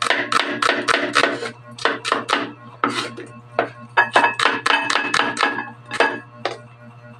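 Kitchen knife chopping a red onion on a wooden cutting board: quick runs of sharp knocks, about four a second, broken by short pauses.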